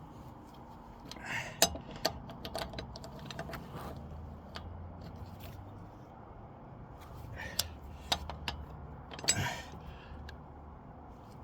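Light metallic clinks and knocks of hand tools being handled, a handful of separate taps spread over several seconds, with some brief rustling between them.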